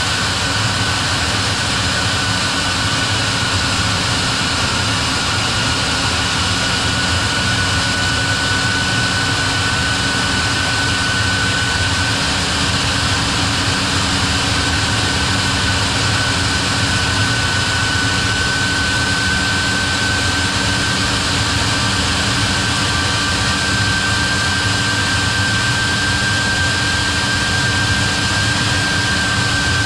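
A machine engine running steadily at constant speed, with a high whine above it that rises slowly in pitch.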